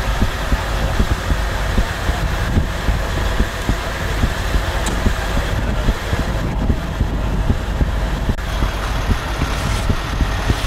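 A motor vehicle engine idling: a steady low rumble.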